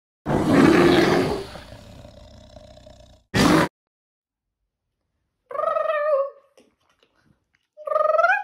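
A loud bear-like roar that fades away over about two seconds, then a short sharp burst of noise about three seconds in. Later come two short wavering calls, the second just as the scene changes.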